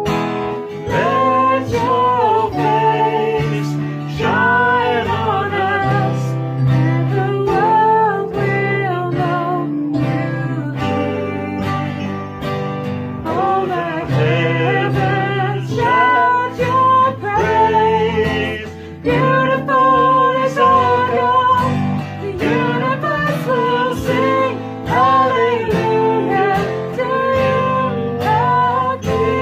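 A woman singing a worship song, accompanied by strummed acoustic guitar and keyboard.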